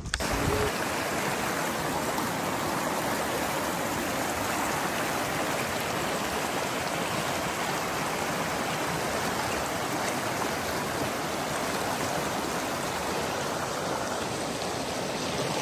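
Flowing water of a stream rushing steadily, an even, unbroken hiss.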